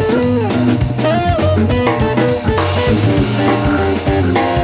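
Live organ-jazz band playing: a hollow-body electric guitar line over a Hammond organ and a drum kit with cymbals and bass drum.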